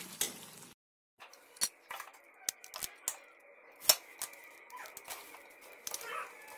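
Metal spatula clinking and scraping against a steel pan and serving bowl as cooked chicken keema with peas is dished out: a string of separate clicks and knocks, the loudest about four seconds in.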